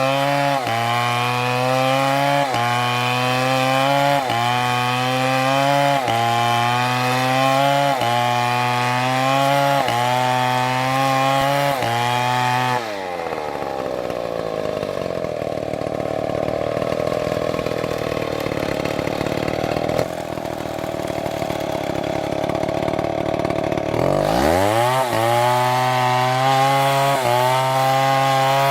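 Stihl chainsaw cutting wood under load, its engine note surging and sagging in a regular rhythm about every second and a half. About halfway through the revs fall away and the saw runs lower for around ten seconds, then it revs back up and the rhythmic cutting resumes.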